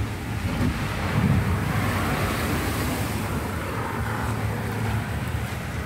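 Heavy tropical rain pouring steadily, with low wind rumble on the phone's microphone that swells about a second in.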